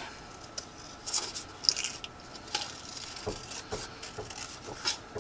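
Scissors snipping through paper while fussy-cutting around a printed image, a scattering of short irregular snips and soft paper rustles.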